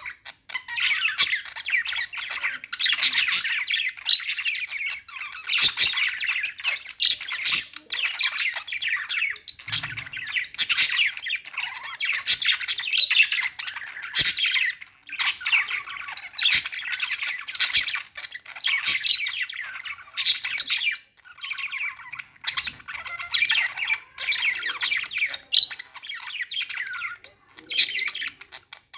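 Budgies chattering continuously, with frequent sharp squawks and chirps and only brief pauses.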